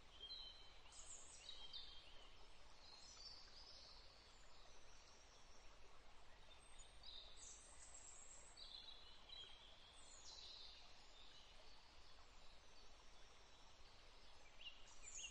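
Near silence with faint, high bird chirps and twitters coming and going.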